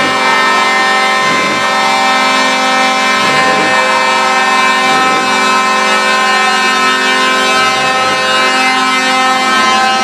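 Truck air horns held in one long, loud, steady chord, with a diesel truck engine revving up repeatedly underneath, every second or two.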